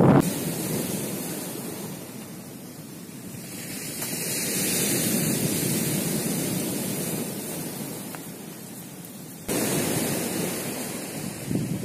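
Sea surf washing on a pebble beach, a steady hiss that swells and fades, jumping suddenly louder about nine and a half seconds in.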